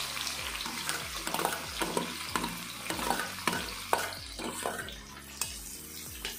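Chopped onions sizzling as they slide into hot oil in a wok, with a metal slotted spatula scraping and knocking against a steel plate and the pan about twice a second. The strokes thin out near the end while the frying hiss goes on.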